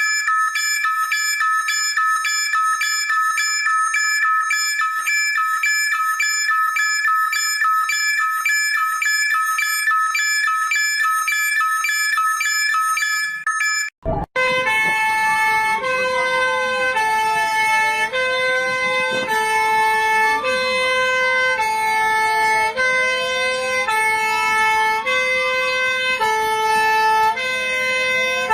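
Synthesized emergency-alert alarm tones. First a high chord of several beeps pulsing rapidly; about halfway through it cuts suddenly to a second alarm of stepped tones with a siren tone wailing up and down every few seconds.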